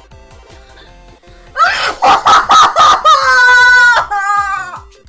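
A girl shrieking with excitement over quiet background music: about a second and a half in, a string of short high shrieks, then one long held shriek that fades out near the end.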